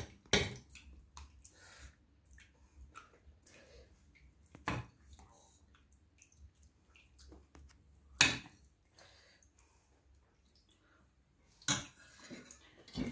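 A steel ladle clinks against the curry pot and a steel plate as curry is spooned onto rice, with soft wet dripping and sloshing between the clinks. There are four or five sharp clinks, the loudest about eight seconds in.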